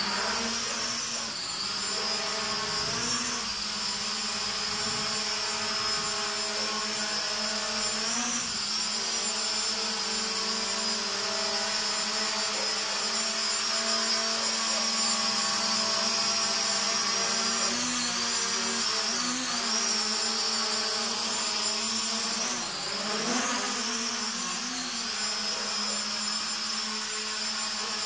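Hubsan X4 H502E mini quadcopter's motors and propellers whining steadily in flight. The pitch dips and rises briefly every so often as it adjusts its thrust.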